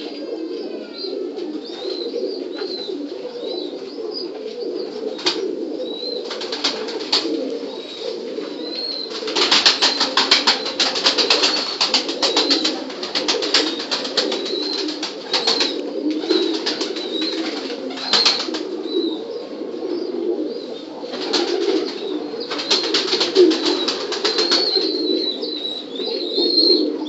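A flock of domestic desi high-flying pigeons cooing continuously in their loft, with thin high chirps over the top. Bursts of wing flapping come and go, the longest about a third of the way in and again near the end.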